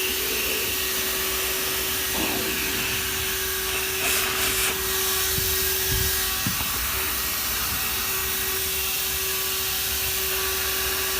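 HOTOR 12V corded handheld car vacuum running steadily, a constant motor whine over airflow hiss as it sucks up loose debris. There is a brief louder rush of hiss about four seconds in and a few dull knocks around six seconds.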